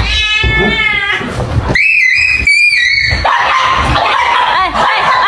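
A pet animal's loud, high-pitched cries: a wavering call in the first second, then two long shrill cries about two and three seconds in, followed by shorter yelps.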